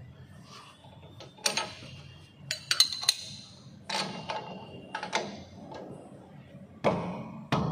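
Irregular sharp metallic clinks and knocks from a steel bar worked against a car's rear wheel hub and drum brake assembly, about ten strikes, some ringing briefly.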